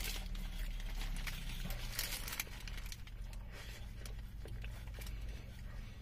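A man eating a burger inside a car cabin: soft chewing and biting noises with the paper wrapper crinkling now and then, over a low steady hum.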